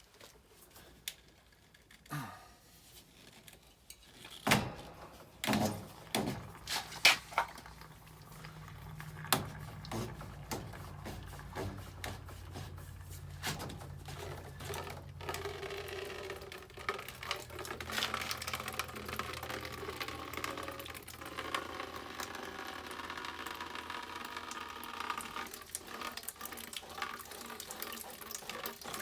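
A few knocks and clicks, then water running steadily out through a hose hooked to the well's water line as its last pressure is bled off; the flow grows stronger about halfway through.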